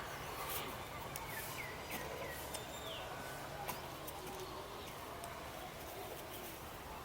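A small bird chirping: a quick run of four short, hooked high notes about a second in, then one more higher chirp about three and a half seconds in, over a steady outdoor background hum.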